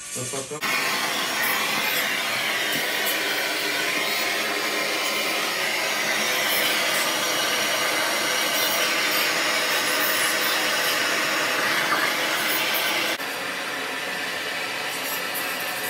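Handheld gas torch burning with a steady hiss as it heats a copper pipe joint for sweat soldering. The hiss drops a little in level about 13 seconds in.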